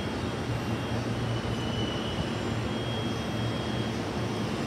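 Steady rumble of a train running by, with a faint high whine above it.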